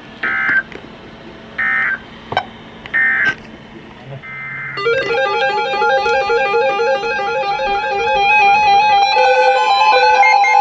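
Emergency Alert System end-of-message signal: three short bursts of digital data tone, a little over a second apart. About five seconds in, music with quick stepping electronic notes starts and grows louder.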